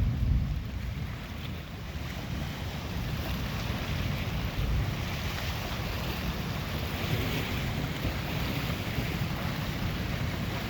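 Wind buffeting the microphone: a steady, uneven low rumble with a hiss above it. It eases off over the first second or two after a stronger gust.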